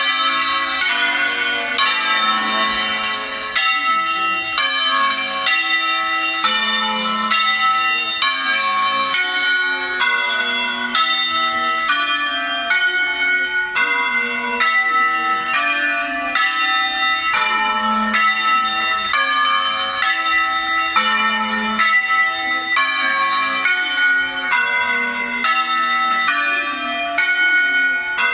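Ghizzole's church bells, a peal of six in A-flat rung by hand in the Veronese style, sounding a steady succession of strikes of different pitches, about two a second, each ringing on into the next.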